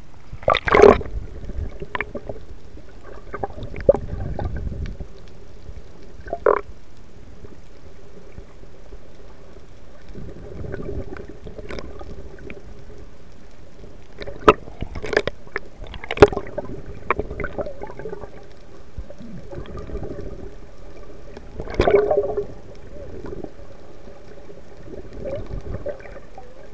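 Muffled water sounds heard through a camera held under and around the sea surface while snorkeling: sloshing and bubbling over a faint steady hum, broken by sharp knocks and splashes every few seconds, loudest around a third of the way in and again near three-quarters.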